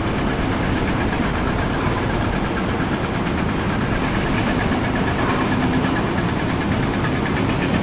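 An engine running steadily at an even level.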